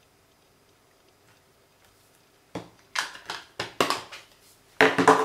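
Quiet at first, then from about halfway in a quick run of sharp clacks and knocks, the loudest near the end: a metal Distress Oxide ink pad tin being handled on a table and its lid fitted back on.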